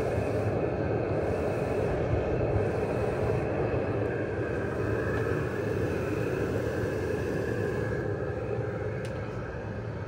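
VEVOR 2 kW diesel air heater running in its box with the insulated lid open: a steady whir from its blower and burner with a faint steady whine. It grows a little quieter toward the end.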